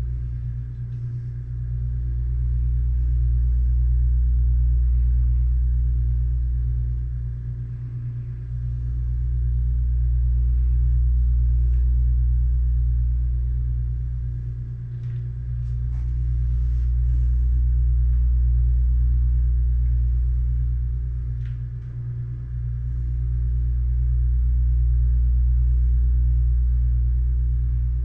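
A steady low rumble that swells and fades about every seven seconds, with a few faint clicks of small parts being handled on the transfer case.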